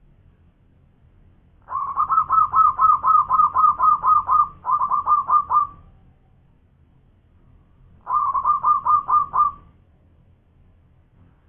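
Zebra dove singing its rapid staccato cooing song. A long run of quick repeated notes starts about two seconds in and lasts about four seconds, and a second, shorter run follows about two seconds later.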